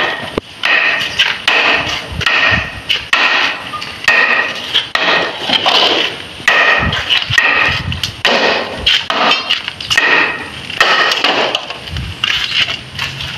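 Repeated sharp strikes of a tool on a green bamboo pole, about two a second, each with a short hollow ring, as the pole is chopped and split lengthwise.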